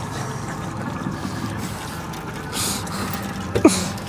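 Boat's outboard motor running steadily as a fish is lifted in a landing net, with a brief splashy hiss a little past halfway. A short, sharp pitched sound that glides in pitch comes about three and a half seconds in and is the loudest thing.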